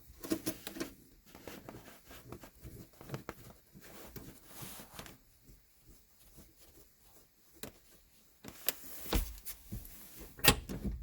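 Scattered light clicks and knocks of a Dolomiti shifter's gear lever in a Lotus Elise/Exige being moved through the gates to test the first/second gear adjustment, with a few sharper knocks near the end.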